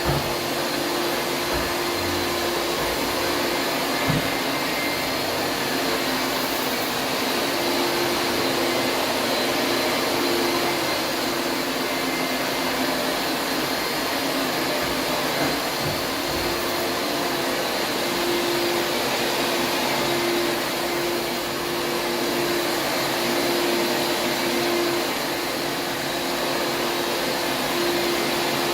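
Taski Tapitronic Electronic 38 upright vacuum cleaner running steadily on carpet, a constant motor noise with a steady hum, with a couple of low knocks in the first few seconds.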